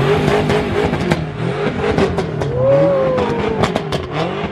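Several car engines revving up and down, with sharp crackles running through it.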